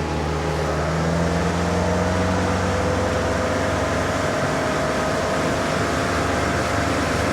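MerCruiser 120 hp four-cylinder sterndrive engine running hard under heavy throttle. Its pitch and loudness rise over the first second or so, then hold steady.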